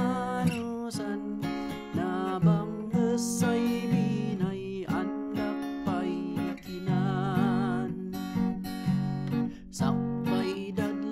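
A man singing while strumming an acoustic guitar, heard through a LENSGO KD96 cardioid condenser microphone as a sound test. He holds one note with vibrato about seven seconds in.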